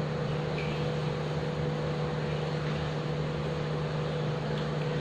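Steady mechanical hum of a small motor running, with a constant low drone and no change in pitch.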